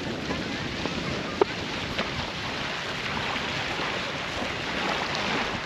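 Steady rushing noise of wind and water at a river beach, with a faint short knock about a second and a half in.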